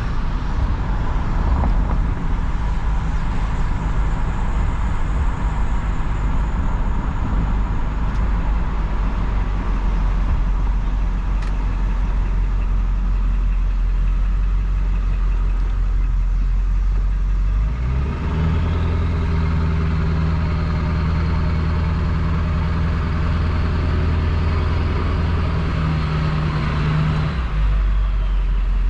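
2000 Ford F-350's 7.3 L Powerstroke turbo-diesel V8, straight-piped with the muffler deleted, droning low while cruising. About eighteen seconds in, it pulls harder: the exhaust note gets louder and a rising turbo whistle comes in, fading out near the end.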